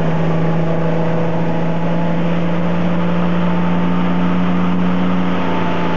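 Tow boat's engine running hard under load, pulling two water skiers up out of the water; its note holds steady at high revs over a rush of wind and water.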